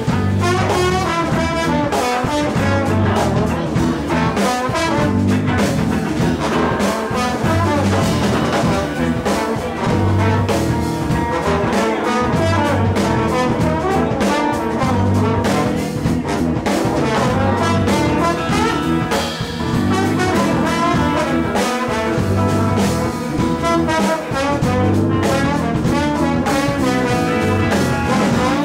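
A live jazz band playing an instrumental number: trombone and saxophone over electric guitars and drums, with a steady beat.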